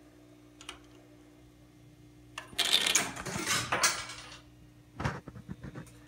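Seeburg Select-o-matic 100 jukebox's mechanism clattering for about two seconds, a quick run of metallic clicks, with a few more clicks about a second later. Under it runs a steady electrical hum from the machine.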